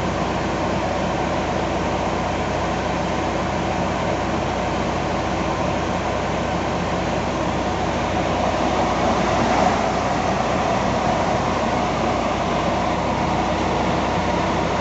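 Transformer cooling fan's induction motor running on its test run: a steady rush of air from the fan with a low electrical hum underneath.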